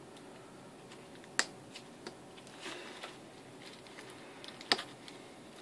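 Faint handling noises of a paper-and-tape model shotgun: light rustling, with two sharp clicks about a second and a half in and near the end.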